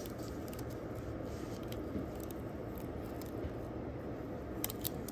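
Blue masking tape being peeled off a painted plastic fishing lure, with a few sharp crackles near the end. Under it runs a steady low noise.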